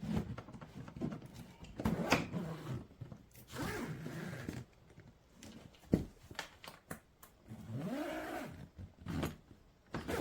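Suitcase zipper being pulled along in several strokes, each giving a rasping whine that rises and falls in pitch with the pull, with a single sharp click about midway.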